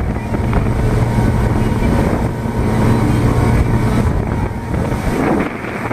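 Motorboat engine running steadily under way, a constant low hum with wind on the microphone.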